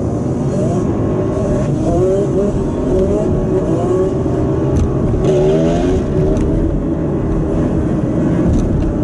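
Dirt bike and ATV engines revving repeatedly in short rising and falling bursts, heard from inside a car over its steady road rumble. The revving is busiest about four to six seconds in.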